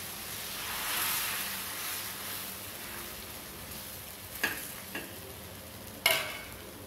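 Wheat dosa batter sizzling on a hot dosa tawa as more thin batter is poured from a ladle into the gaps and spread. The sizzle swells about a second in, and a few sharp clicks come near the end, the last the loudest.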